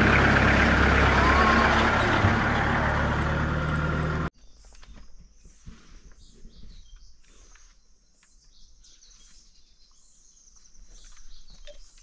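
Vehicle engine running with road and wind noise, which cuts off abruptly about four seconds in. It gives way to a much quieter stretch of steady, high-pitched chirping with a few faint clicks.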